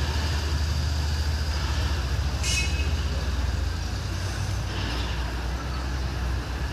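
Heavy vehicle's engine running steadily at low revs, a close low rumble that eases off near the end. A brief high hiss comes about two and a half seconds in.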